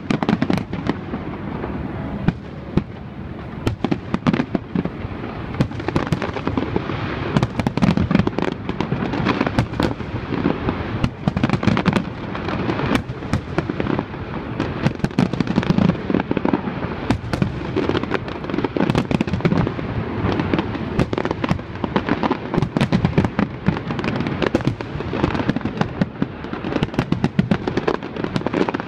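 Fireworks display at full barrage: aerial shells bursting in quick succession, many bangs overlapping into a continuous low rumble.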